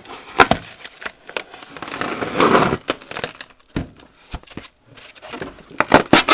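White packing material being pulled out of a heater housing: a crinkling rustle about two to three seconds in, with sharp knocks and clicks as it rubs and bumps against the box, and a quick cluster of them near the end.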